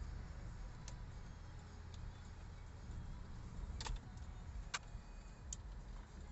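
Steady low road and engine rumble inside a moving car's cabin, with about five short sharp clicks scattered at uneven intervals.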